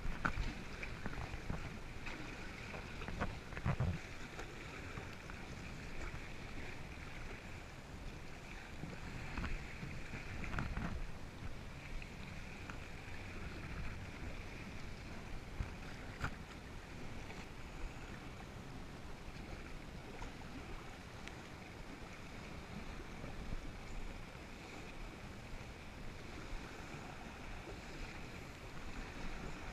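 Kayak paddling on open lake water: the paddle dipping and water splashing and lapping against the plastic hull, with a few louder splashes and some wind on the microphone.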